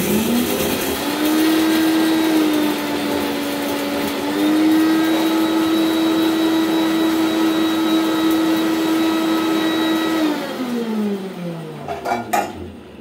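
Electric mixer grinder powdering roasted gram (hurigadale). The motor starts suddenly, winds up to a steady whine, steps up in pitch about four seconds in, and runs for about ten seconds. It is then switched off and spins down with a falling whine, followed by a couple of knocks near the end.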